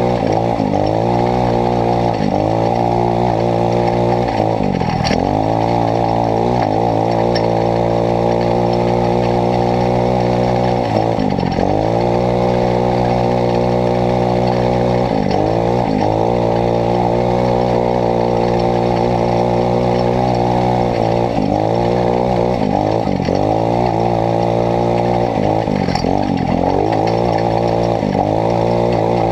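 Kandi 150cc dune buggy's single-cylinder four-stroke engine running under load, its pitch repeatedly dropping and climbing again as the throttle is lifted and reapplied, about half a dozen times.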